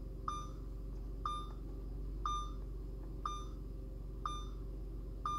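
Short electronic beeps repeating about once a second, six in a row, over a steady low hum: a car's dashboard warning chime with the ignition on.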